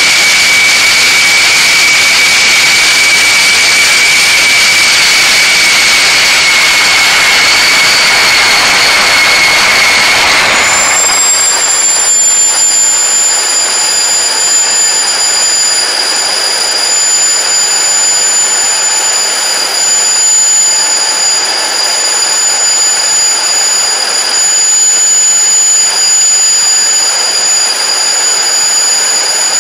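Homemade gas-turbine jet engine with afterburner running at power: a loud, steady roar with a high turbine whistle. About ten seconds in the sound changes abruptly to a thinner, higher whine with less roar.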